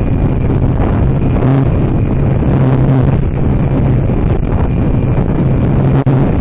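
Wind rushing and buffeting loudly over the RC plane's onboard camera microphone in flight, with a low, steady motor hum that fades in and out.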